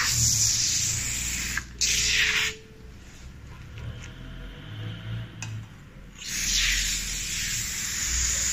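Aerosol can of foam car-interior cleaner spraying onto circular saw blades in long hisses. One burst of about two and a half seconds has a short break in it. After about four seconds of quieter handling with a few faint ticks, a second burst starts about six seconds in.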